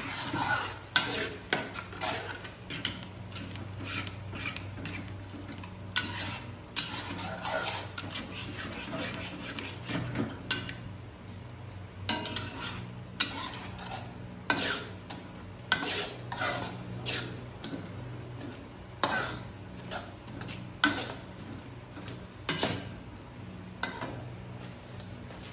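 Spatula scraping and knocking against a steel wok while stirring a thick chili sauce, in irregular strokes about every second or two, over a steady low hum.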